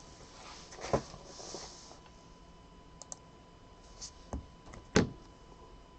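Computer mouse clicks at the randomizer: several separate short clicks, two of them louder knocks, about a second in and near the end.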